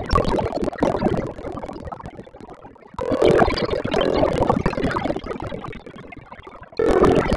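Egg with chopped onion and tomato sizzling in a stainless steel pot while a plastic spatula stirs and scrapes it against the pot. The sizzle jumps loud about three seconds in and again near the end, fading in between.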